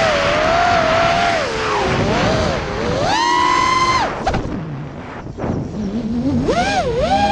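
FPV racing quadcopter's brushless motors and Race Kraft 5051 propellers whining, the pitch rising and falling with the throttle. About three seconds in the whine climbs sharply and holds for a second, then cuts off as the throttle is chopped; near the end it climbs again.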